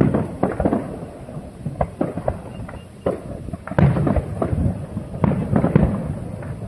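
Fireworks display: a quick, irregular run of aerial shell bursts, sharp bangs each trailed by a low rumble, growing denser and louder past the middle.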